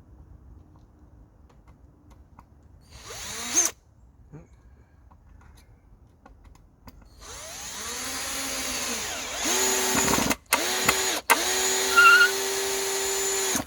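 Bauer cordless drill driving screws. There is a short spin about three seconds in. From about seven seconds a longer run follows, its whine rising in pitch, broken by two brief trigger releases a little after ten and eleven seconds, and it stops at the end.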